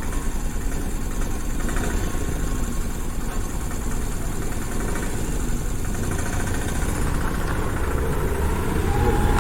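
An engine idling steadily, its firing a fast even pulse.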